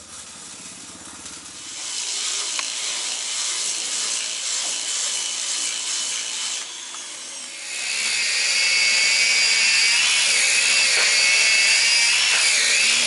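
Electric angle grinders with sanding discs grinding the bottom of a boat hull: a steady high motor whine over a gritty rasp. The sound is faint for the first two seconds and louder from about eight seconds in.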